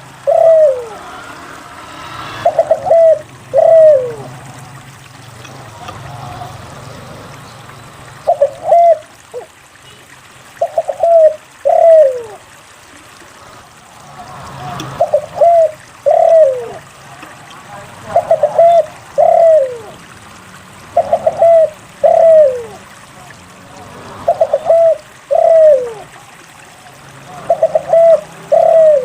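Spotted dove (derkuku) cooing over and over: about ten phrases, one every two to three seconds. Each phrase is a quick stuttering coo followed by a longer note that slides downward.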